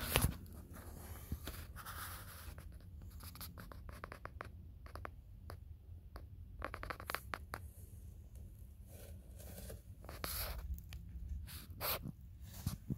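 Scraping, rustling and scattered clicks of a person shifting about on hands and knees in a cramped space and handling a phone, with a low steady hum underneath.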